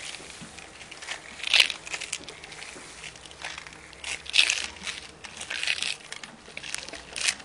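Long-handled paint roller working a liquid two-component waterproofing coating over rough sprayed polyurethane foam, giving an irregular crackling swish with each stroke, about five strokes.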